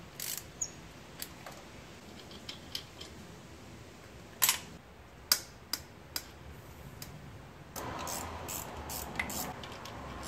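Scattered metallic clicks and clinks of a wrench working the 12 mm bolts that hold the fuel rail to the intake manifold, with two sharper clicks about halfway through. For the last couple of seconds the tool handling turns into a denser rattling and scraping.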